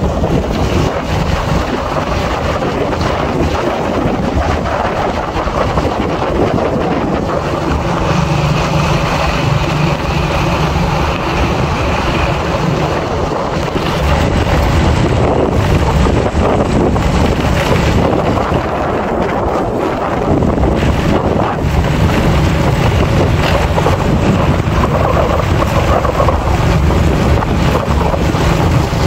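Wind rushing over the microphone of a moving motorcycle, with the motorcycle's engine running steadily underneath; the engine note strengthens and shifts a little several times.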